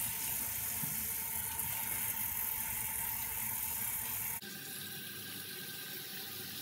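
Bathroom tap running steadily into the sink for face washing. About four and a half seconds in, the sound abruptly turns slightly quieter and thinner.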